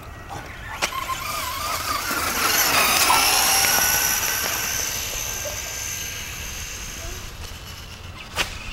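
Traxxas Slash radio-controlled truck's motor whining at speed, growing louder over the first few seconds and then fading as it drives away. A couple of sharp clicks, one about a second in and one near the end.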